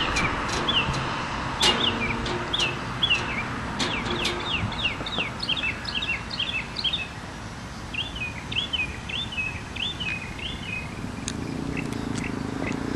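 Songbirds chirping over and over, in quick rising-and-falling notes, over steady outdoor background noise.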